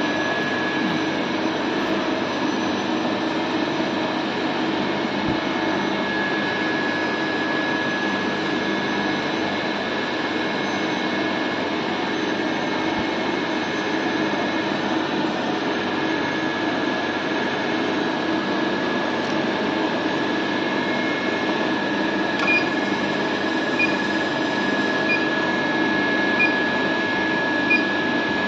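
Steady workshop machinery hum with a constant high whine running through it. In the last several seconds, short high beeps repeat a little over a second apart.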